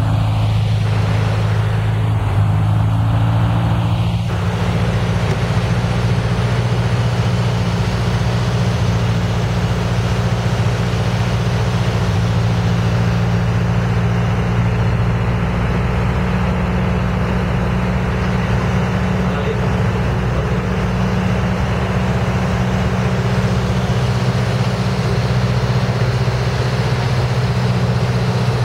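Light single-engine plane's piston engine and propeller running steadily, heard from inside the cockpit on the approach to land.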